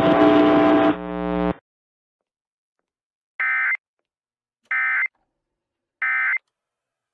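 A buzzing electronic tone cuts off about a second and a half in. After a pause come three short identical digital data bursts, evenly spaced about 1.3 seconds apart: the Emergency Alert System end-of-message signal.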